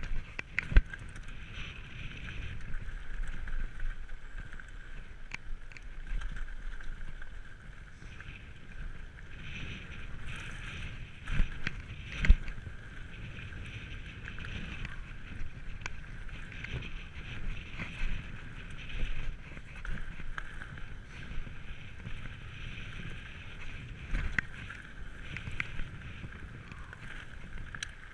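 Electric mountain bike ridden fast over a gravel forest trail: a steady rumble of tyres on gravel and rattling of the bike, with sharp knocks over bumps, the loudest about a second in and again around twelve seconds in. A steady high whine runs underneath.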